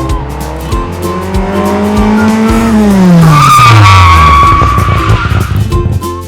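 Added car sound effect: an engine revs up, its pitch rising, then drops away in a long downward glide as a tyre screech comes in and holds for about two seconds, over children's background music.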